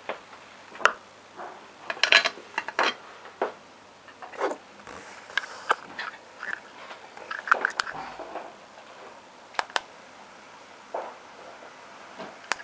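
Irregular clicks, taps and rustles of a metal-rimmed elevator push button being handled and turned in the hand, with a pair of sharp clicks close together near ten seconds in.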